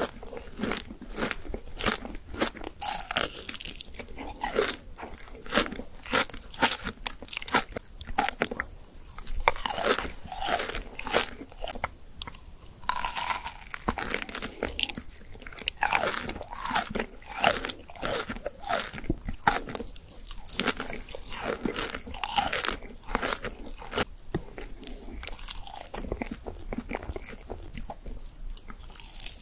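Close-miked chewing and biting of soft white desserts: a powder-dusted cake with a crumbly green filling, then cheesecake. A dense, steady run of small mouth clicks and chews throughout.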